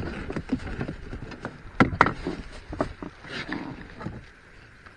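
Handling noises in an inflatable boat as a caught pike is unhooked in a landing net: irregular knocks and rustles, with two sharp clicks about two seconds in, then quieter near the end.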